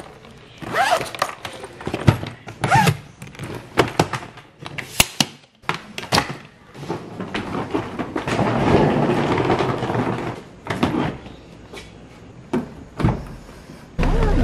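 Luggage being handled: a string of knocks, clicks and thunks from a hard-shell suitcase, with a steadier rolling noise about seven to ten seconds in as a wheeled suitcase moves across a tiled floor. A heavier low thump comes near the end.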